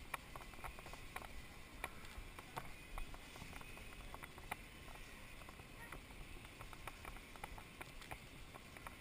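Quiet convenience-store room tone: a steady low hiss with scattered light clicks and taps, about one or two a second.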